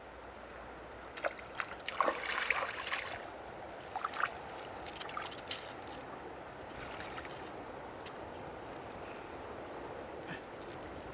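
Water splashing and sloshing in a river, a cluster of splashes about two to three seconds in and a few more near four seconds, over steady running water. A faint high chirp repeats through the second half.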